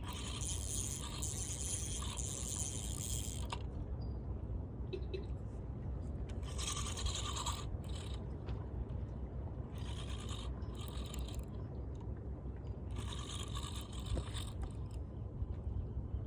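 Fishing reel working in several separate spells of grinding, ratcheting noise a few seconds each, over a steady low rumble of wind on the microphone.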